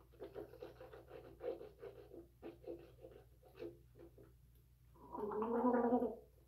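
Mouthwash swished around the mouth in a run of quick wet squishes, then, about five seconds in, gargled with the head tipped back for just over a second, the loudest part.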